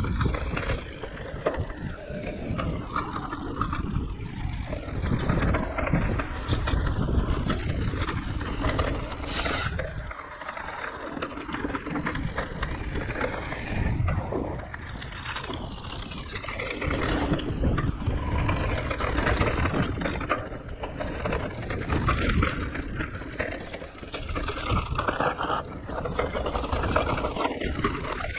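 Giant Reign E+ electric enduro mountain bike ridden down a rough trail: a continuous rolling rumble of tyres on the ground, with rattles and knocks, swelling and fading in loudness.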